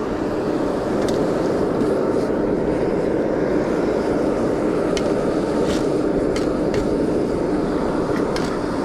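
A forge running with a steady rushing noise from its burner, with a few faint clicks over it.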